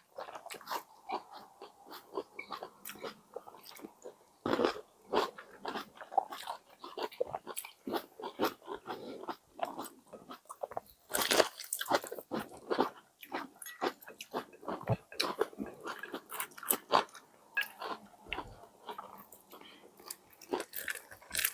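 Two people biting into and chewing brioche bun sandwiches of ham, egg, cheese and lettuce, picked up close on clip-on mics. It is an irregular run of soft crunches and mouth sounds, with louder bites about four and a half and eleven seconds in.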